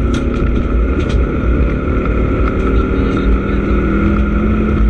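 Rally car engine running under load, heard from inside the cabin at a fairly steady pitch over heavy tyre and gravel rumble. Two sharp ticks near the start.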